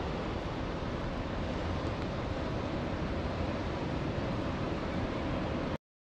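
Steady rushing noise of ocean surf mixed with wind, cutting off suddenly just before the end.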